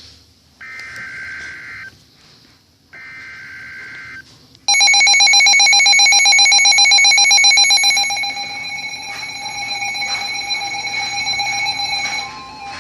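Two bursts of warbling digital data tones (the SAME header of an emergency alert), then a weather radio's loud, rapidly pulsing warning alarm that sounds for about seven seconds, dropping in level partway through. It cuts off near the end, and a steady tone starts.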